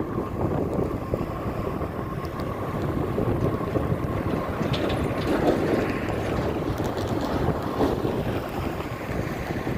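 Wind buffeting the microphone over the low rumble of a distant Union Pacific freight train approaching on the main line.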